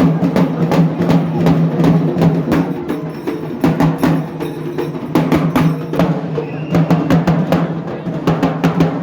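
Festival drumming: drums struck hard in a fast, steady rhythm, about four to five beats a second, with a held low tone underneath.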